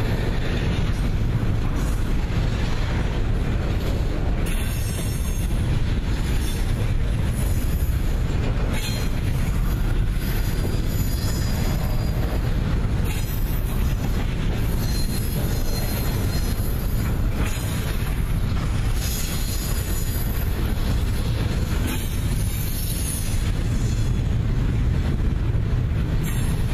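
Double-stack container train's well cars rolling past: a steady low rumble of steel wheels on rail, with high-pitched wheel squeal coming and going as the cars take the curve.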